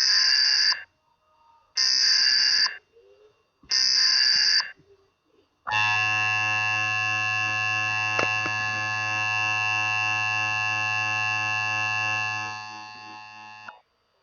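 Emergency Alert System alert opening: three short data bursts of the SAME header, about two seconds apart, then a long steady attention tone that fades and cuts off near the end.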